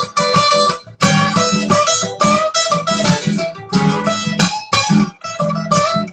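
Guitar-led music in an instrumental break of a song, with many plucked and strummed notes in quick succession.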